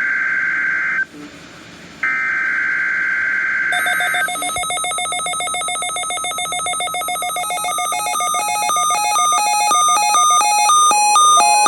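NOAA Weather Radio Emergency Alert System data bursts: rapid, harsh digital warbling tones in two bursts of about two seconds each, a second apart. They announce an incoming alert, here a tornado watch. From about four seconds in, a denser pattern of stepping electronic tones takes over and grows louder.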